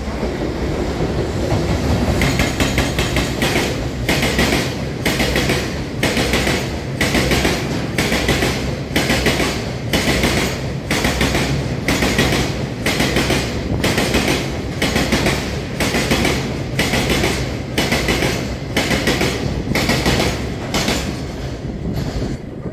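Fast-running freight train of loaded oil tank wagons, hauled by a JR Freight EF210 electric locomotive, passing close by. The wheels clack over the rail joints in an even rhythm, about one and a half clacks a second, over a steady rumble. The clacks stop just before the end as the last wagon goes by.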